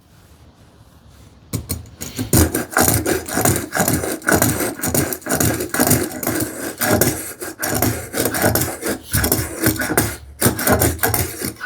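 Spokeshave, set for a deeper cut, shaving wood in a quick run of short strokes that starts about a second and a half in.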